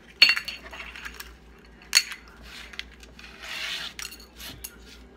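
Kitchen bowls and utensils clinking: two sharp clinks that ring briefly, about a quarter second and two seconds in, among lighter taps, with a short scraping sound a little past the middle.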